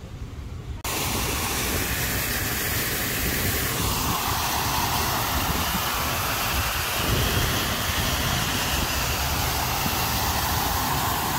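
Steady, loud rushing hiss of the Jet d'Eau's high-pressure water jet and its falling spray, heard right beside the nozzle. It starts abruptly about a second in, after quieter outdoor background.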